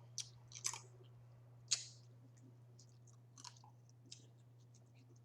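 Close-miked eating of crawfish: a few sharp cracks and clicks of shell and some chewing. The loudest crack comes a little under two seconds in, over a steady low hum.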